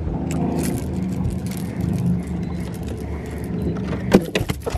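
Boat motor running steadily at idle, with a quick run of slaps and thumps about four seconds in as a landed blue catfish flops on the boat deck.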